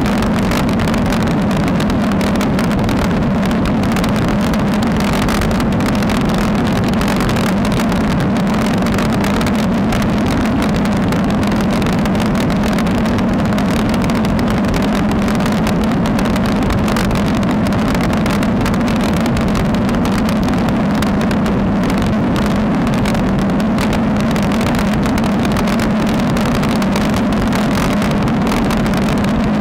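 Steady rush of wind and tyre noise on a bicycle-mounted action camera's microphone while riding a road bike at speed: loud and unbroken, with a low drone under it.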